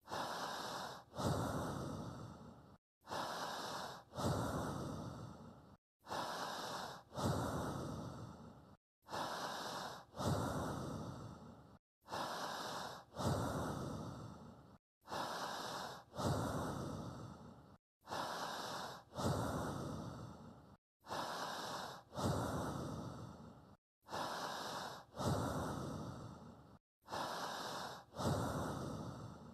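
A steady, looped breathing track, as a pacing guide for synchronised breathing: a short breath in, then a longer breath out that fades. The cycle repeats evenly about every three seconds, with a brief silence between cycles.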